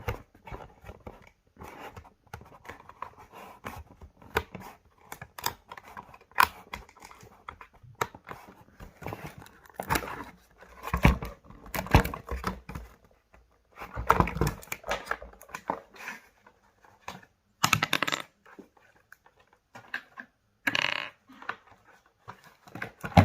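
Packaging being pulled apart and the RC car worked free of its box: irregular rustling and tearing with scattered knocks and clicks, a few louder bursts of handling along the way.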